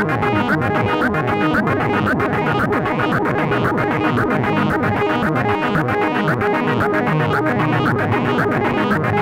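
Eurorack modular synthesizer oscillators playing a fast sequenced pattern of quantized pitches replicated across several voices, notes pulsing several times a second, with low tones that keep sliding downward.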